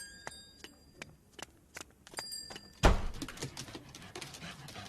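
Story sound effects: light clicks with high bell-like dings, once near the start and again about two seconds in, then a single heavy thump about three seconds in.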